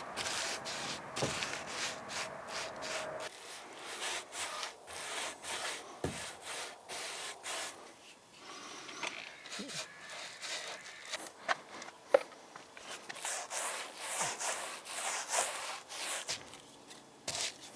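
Paintbrush stroking paint onto wooden trim boards: a run of short, irregular scratchy brushing strokes, with one sharp tap about two-thirds of the way through.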